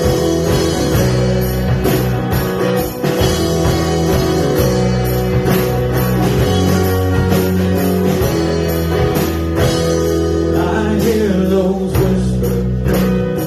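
A rock band playing a song live, with singing over guitars, bass and drums.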